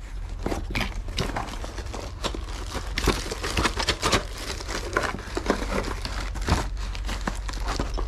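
Clear plastic packaging of a magnetic sticks toy set crinkling and rustling as it is handled and opened, with irregular crackles, busiest around the middle.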